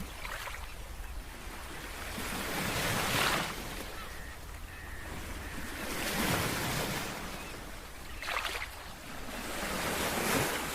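Rushing coastal wind and ocean surf, swelling and easing three times, roughly every three to four seconds.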